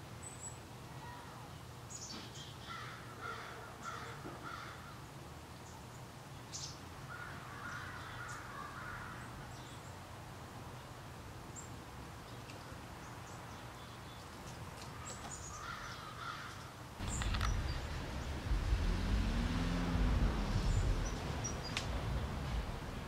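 Crows cawing in a few short series over quiet woodland ambience. About two-thirds of the way through a steady low rumble comes in.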